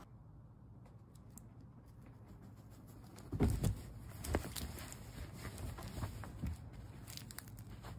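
Soft thumps and fabric rustling from a cat grabbing and pawing at a plush shark toy in a fabric cat tunnel. The first few seconds are faint. A little past three seconds a cluster of louder dull thuds starts, followed by scattered light taps and bumps.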